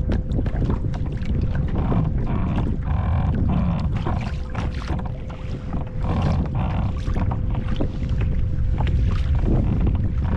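Wind buffeting the microphone on an open kayak at sea, a heavy steady rumble, with scattered knocks and clicks of handling and a faint steady hum throughout.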